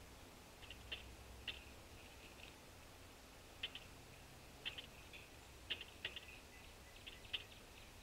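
Woodpeckers pecking at wooden feeders: faint, irregular light taps, about a dozen, coming singly and in quick pairs.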